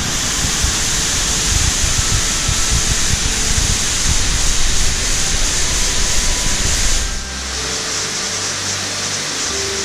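Waterfall pouring over rock, a loud steady rush of water. About seven seconds in it drops suddenly to a quieter, more distant rush.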